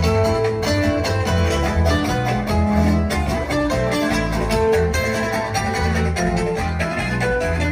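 Instrumental music from the party band with a steady, strong bass line and no singing.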